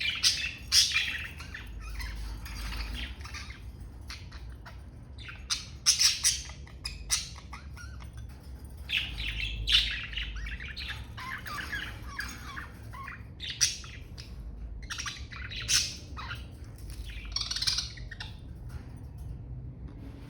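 Budgerigars chattering: a busy run of warbling, chirps and sharp squawks, with louder calls breaking out now and then over a low steady hum.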